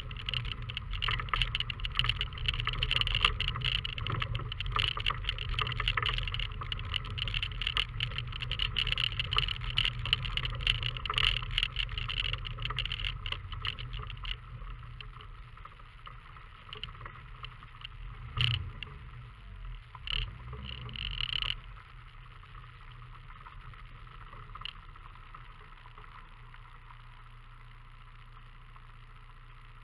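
Fiat Panda 4x4 driving over a rough dirt track: steady engine rumble with constant rattling, knocking and crunching from the bumpy ground and the car. About halfway the noise drops away to a quieter, steady low engine hum, broken by a few short louder bursts, as the car slows on smoother ground.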